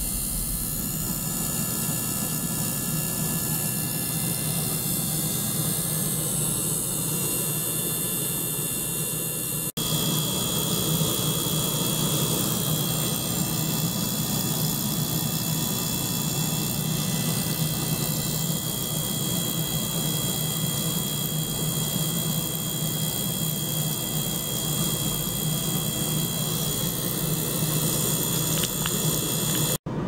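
Small ultrasonic cleaner running while a small DC motor pump circulates liquid through its tubing: a steady whir and hiss with several high whining tones. It drops out for an instant about ten seconds in and again near the end.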